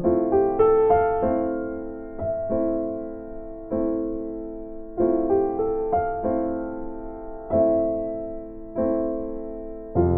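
Background music: a slow electric piano piece, its chords and notes struck about every second or so and left to ring and fade.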